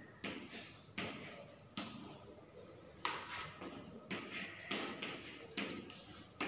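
Chalk tapping on a chalkboard as single digits are written, a sharp tap roughly once a second.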